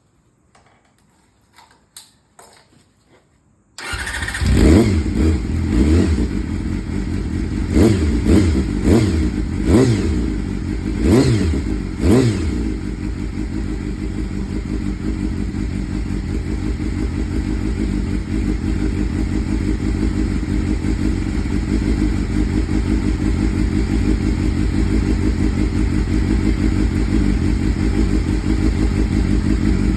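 Honda CBR250RR (MC22) inline-four engine breathing through a universal aftermarket silencer with the baffle fitted. After a few faint clicks it starts about four seconds in and is blipped several times in quick revs. It then settles into a steady idle.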